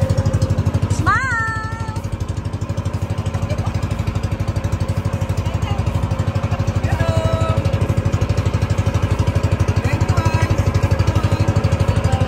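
A small engine running steadily with a fast, even pulsing throb, with brief voice-like calls over it now and then.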